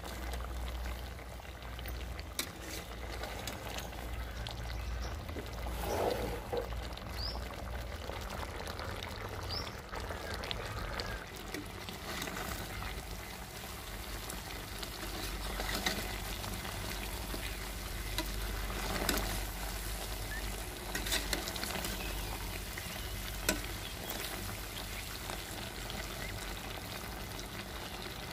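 Sugar syrup boiling with pieces of petha (ash gourd) in a stainless-steel pot, a steady bubbling sizzle as the syrup is boiled down to thicken. Now and then a steel spoon stirring and clicking against the pot.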